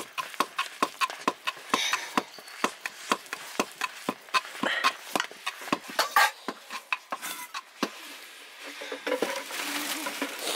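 Wooden stick stirring thick corn rice in an aluminium pot, knocking and scraping against the pot about three times a second. The strokes stop about eight seconds in, and a softer rustling follows.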